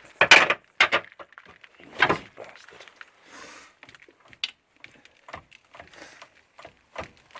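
Loud clanks and knocks as a car's front driveshaft and hub assembly is yanked out by hand, three heavy knocks in the first two seconds, then scattered lighter clicks and taps.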